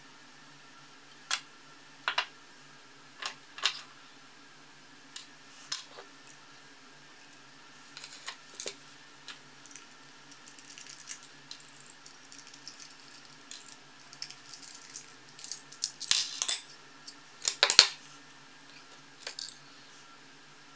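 Sharp metal clicks and clinks of a hard drive being taken apart by hand: screwdriver, screws and the drive's metal parts tapping and knocking together, scattered at first and becoming a denser clatter about three quarters of the way through. A faint steady hum runs underneath.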